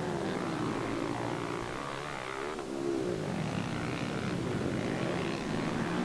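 Motocross bike engines revving on the track, their pitch rising and falling as the riders go on and off the throttle.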